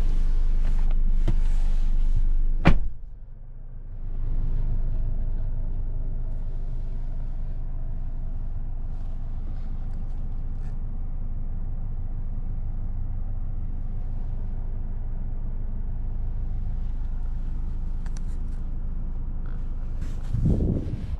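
A 2024 Mazda CX-5 2.5 S Premium, with its 2.5-litre four-cylinder, being driven: a steady low rumble of engine and road noise. A single sharp click comes about three seconds in, with a brief drop in the rumble after it, and a short thump comes near the end.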